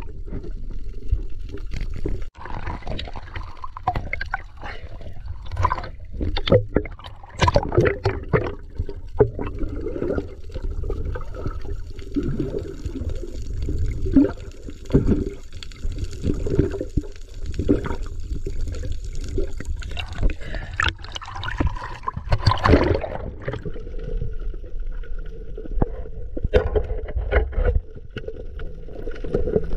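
Water gurgling and rushing around an underwater camera, with a steady low rumble and many irregular clicks and knocks.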